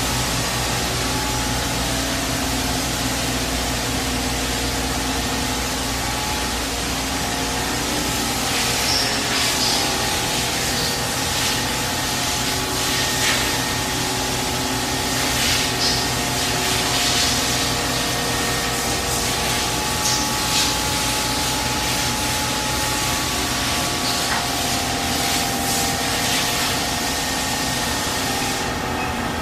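Plastics-processing machinery running steadily, a hum of several steady tones under an even mechanical noise, with short hissing bursts through the middle.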